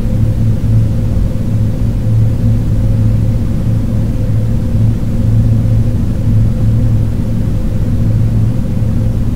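Loud, steady electronic drone of low rumble and hum with a noise hiss over it, the installation's sound design, holding unchanged throughout.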